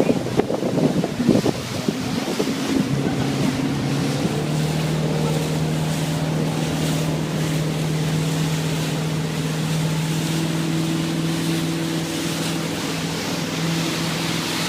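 Motorboat engine running at a steady pitch, with wind buffeting the microphone, heaviest in the first couple of seconds.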